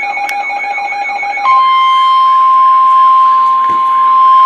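An electronic alarm warbling about four times a second, then, about one and a half seconds in, the steady, loud 1050 Hz NOAA Weather Radio warning alarm tone begins, the signal that a warning broadcast is about to be read.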